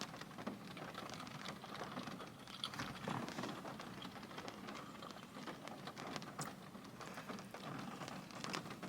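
Light rain pattering on the car, a faint steady patter of scattered small drop ticks.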